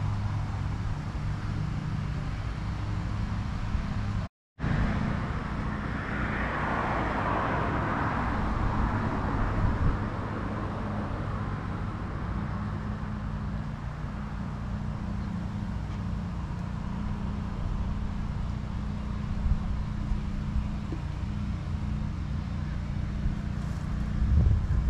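Outdoor ambience with a steady low mechanical hum underneath. A car passes by about six to ten seconds in, its sound swelling and then falling away. The sound cuts out for a split second about four seconds in.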